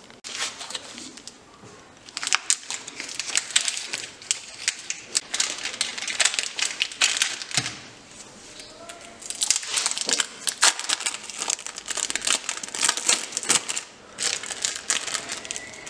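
Crinkling and crackling of thin wrapping handled by hand, in two long stretches with a short lull about eight seconds in.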